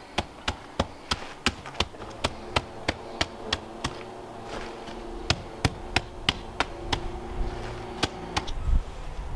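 Hand tamper pounding a layer of MOT hardcore (crushed-stone sub-base) in a trench to compact it: steady, even thuds of about three a second that stop near the end.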